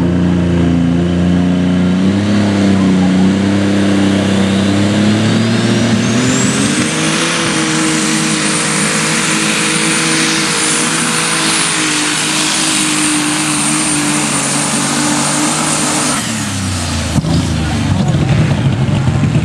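Open Super Stock pulling tractor's turbocharged engine making a pull. It runs up in pitch a few seconds in as the tractor takes off, with a high turbo whistle climbing alongside. It then holds at full throttle, and about 16 seconds in it suddenly falls away as the driver lets off at the end of the pass.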